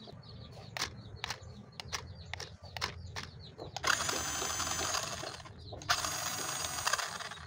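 Light plastic clicks as parts of a toy RC car are handled. About four seconds in, the car's small electric motor and gearbox start whirring with a high whine, in two runs of a second and a half each with a short break between them, as the wheels are driven from the remote.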